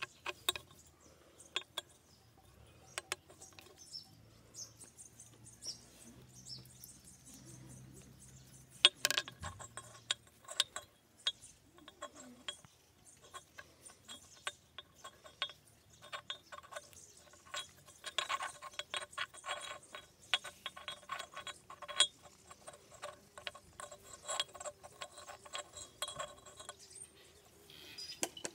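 Close handling noise of small parts being assembled: scattered light clicks and knocks of the bell cap and bead, then a longer run of quick scratchy rustling and clicking in the second half as jute twine is threaded through and knotted.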